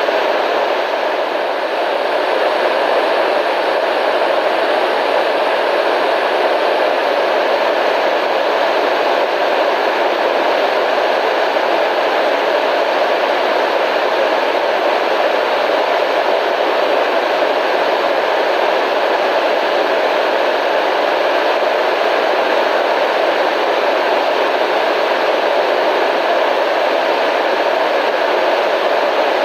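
Steady radio static: a constant, even hiss without breaks, strongest in the mid range and with little low rumble.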